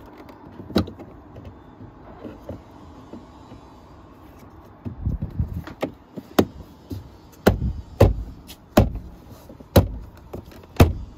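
Interior door trim panel of a VW Golf Mk6 being pressed and knocked back onto the door by hand, its plastic clips snapping home. One knock comes about a second in, then from about halfway a string of sharp knocks and snaps, one or two a second.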